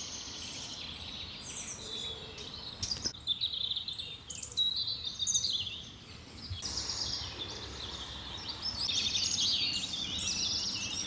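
Several birds singing and chirping, a busy mix of quick high calls and trills over a faint steady hiss, changing abruptly twice.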